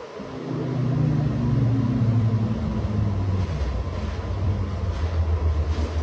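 A motor vehicle engine running, a low hum that comes in at the start and falls in pitch over the first three seconds, then holds steady.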